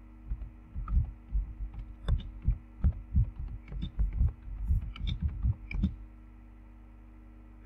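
Typing on a computer keyboard: a quick run of key presses with dull thumps, stopping about six seconds in. A steady low hum runs underneath.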